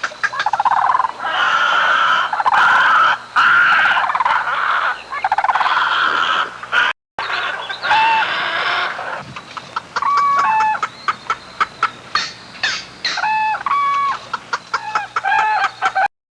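Birds calling in an aviary, many at once and densely overlapping. The sound breaks off briefly about seven seconds in, then gives way to separate short calls.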